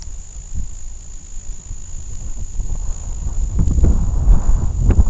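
Night insects keep up a steady, high-pitched chorus by a pond. Under it, a low rumble on the microphone grows louder from about three and a half seconds in.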